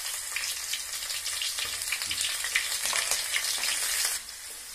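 Freshly added chopped onions sizzling and crackling in hot oil in a pan as they are stirred with a wooden spatula. The sizzle eases a little near the end.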